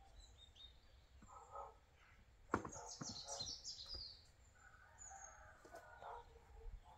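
Chickens clucking faintly. About two and a half seconds in there is a single sharp knock of wooden boards being handled, followed by about a second of high bird chirping.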